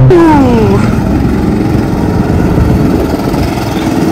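Small go-kart engines running as karts drive past on the track, one engine's pitch falling in the first second as it goes by.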